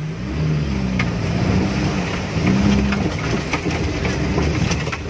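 Off-road 4x4's engine revving up and down under load as it climbs a rocky dirt slope, heard from inside the cab, with a few sharp knocks.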